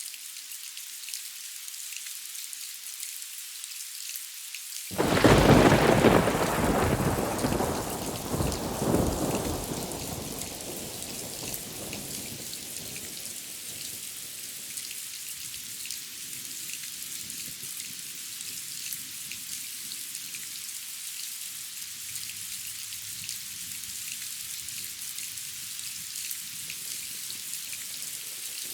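Steady rain falling, then about five seconds in a sudden loud thunderclap that rolls on with a second swell and rumbles away over several seconds, leaving the rain alone.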